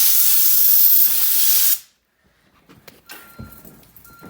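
An aerosol can of smoke-detector test spray hissing in one burst of under two seconds, then cutting off sharply. A faint, repeated beep follows near the end.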